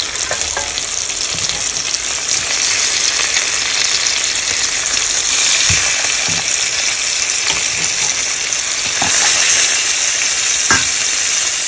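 Rohu fish steaks shallow-frying in hot oil in a pan: a steady, loud sizzle. A few short knocks of a spatula against the pan come through as the pieces are turned over.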